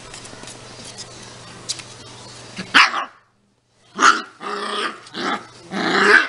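A puppy barking and growling: one sharp, loud bark about three seconds in, then after a brief gap a run of four more barks and growls near the end.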